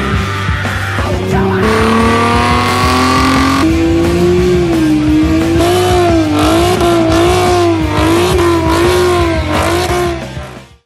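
Chevrolet Camaro engine accelerating hard, its pitch climbing over the first few seconds, then revs swinging up and down about twice a second as the tires squeal through a burnout. The sound fades out near the end.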